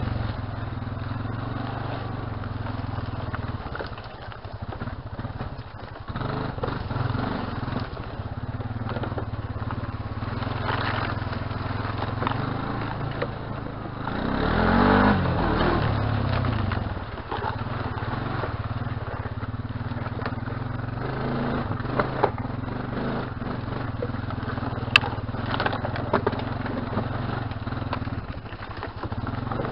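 Honda Rancher ATV's single-cylinder engine running under way, revving up and back down about halfway through, the loudest part. A few sharp knocks come in the second half.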